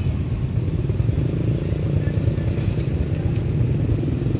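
Motor vehicle engine idling nearby: a steady low rumble with an even pulsing beat.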